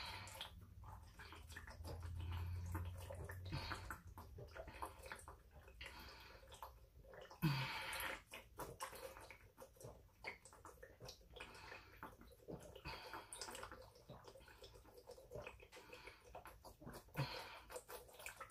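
Person gulping water straight from a thin plastic water bottle in steady swallows, the bottle crinkling as it caves in, with many small wet clicks. A brief louder sound about seven and a half seconds in.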